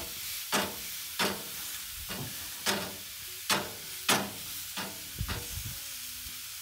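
Ribeye steaks sizzling on hot grill grates over charcoal, with a metal spatula clicking and scraping against the grates about seven times as the steaks are pressed and moved.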